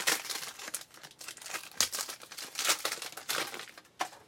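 Crinkling and tearing of a trading-card pack's plastic wrapper as it is opened, in irregular rustling bursts.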